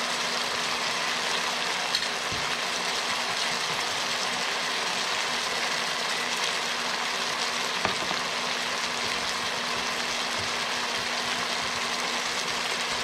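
Onion, sweet and hot peppers and garlic sizzling steadily in oil in a frying pan, with a steady low hum underneath. A faint click comes twice.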